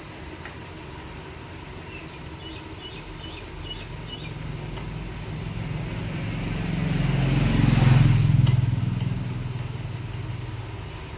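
A motor vehicle's engine drones past, growing louder to a peak a little over halfway through and then fading away. A few faint light clicks come early on.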